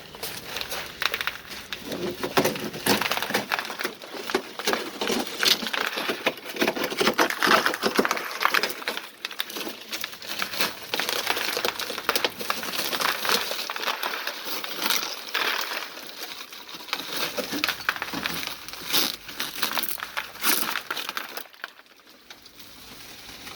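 Remains of a shattered car rear window being chiselled out of the frame: a dense, irregular run of crunching, scraping and clinking glass fragments, which dies away about two seconds before the end.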